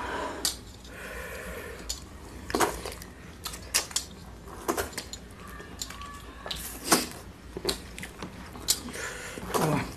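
People eating rice and chicken curry by hand from metal plates: irregular wet chewing and lip smacks mixed with fingers mashing rice and tapping or scraping on the plates, in sharp clicks every second or so.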